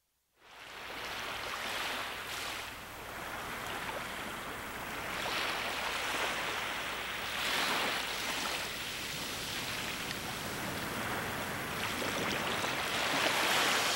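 Ocean surf: waves washing in, swelling and easing several times, fading in about half a second in.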